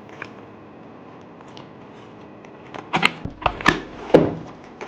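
Cardboard power-supply box being handled and opened by hand: a few faint clicks, then a quick run of sharp clicks and knocks about three seconds in.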